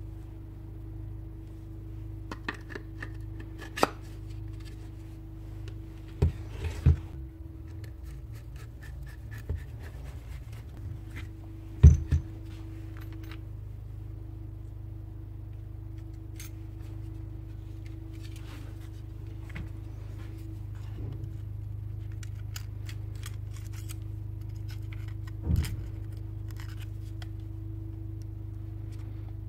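Power-drill parts (a metal field coil and plastic motor housing) being handled and worked on at a bench: scattered clicks, taps and scrapes, with a few sharper knocks, the loudest about twelve seconds in, over a steady low hum.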